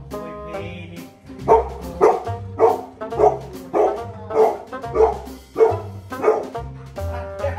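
Golden retriever barking repeatedly, about nine loud barks at a steady pace of roughly one and a half a second, starting about a second and a half in.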